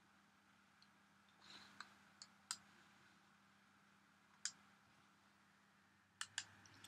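Faint, scattered computer mouse button clicks with near silence between them, and two quick clicks near the end.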